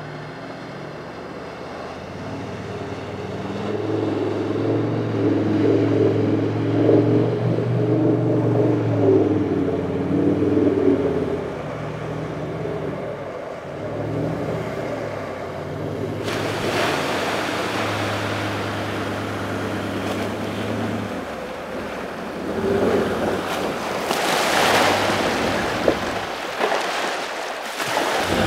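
Nissan Navara four-wheel drive, towing a trailer, driving through a deep river crossing: the engine revs up and pulls steadily under load, and from about halfway in, loud splashing and rushing water from the wash covers it.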